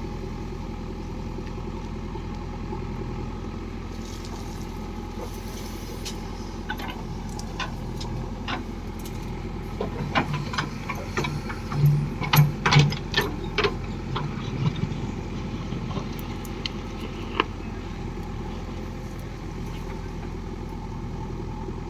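Diesel engine of heavy farm machinery running steadily, with a run of sharp knocks and clanks about halfway through.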